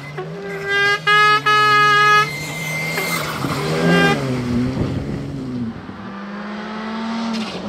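Rally car engines at full throttle: one car held at high revs with two brief cuts about a second in, its note dipping and climbing again mid-way, then another car approaching with a steadily rising engine note near the end.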